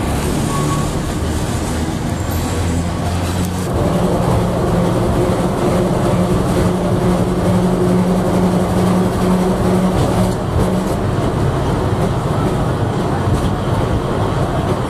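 Historic electric tram running along street track, heard from aboard: a steady rumble of wheels on rail, with the motor hum settling into a steady tone about four seconds in.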